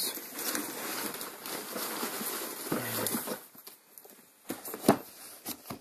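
Rummaging among tools and parts on a workbench: rustling and small clatters for about three seconds, then quieter with a few sharp knocks of metal parts being picked up and set down, the loudest about five seconds in.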